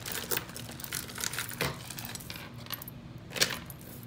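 Metal and stone jewelry pieces clinking and rattling together as they are handled, a run of small clicks with one louder clack about three and a half seconds in.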